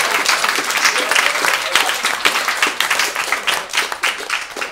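Audience applauding after a punchline, dense clapping at first that thins out to scattered claps near the end.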